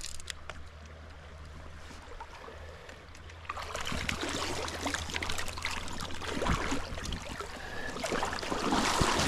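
Hooked brown trout thrashing and splashing at the surface of a shallow creek, starting about three and a half seconds in and growing louder as it is drawn into a landing net. Before that, only the quieter steady rush of the creek.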